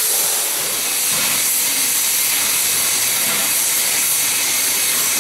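2-8-0 steam locomotive (ex-Lake Superior & Ishpeming No. 34, now Western Maryland 734) venting steam from the top of its boiler: a steady, loud, hissing rush.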